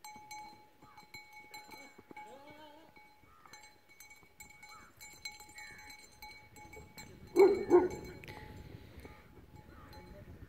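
A dog barks twice in quick succession about seven seconds in. Before that there are only faint scattered sounds.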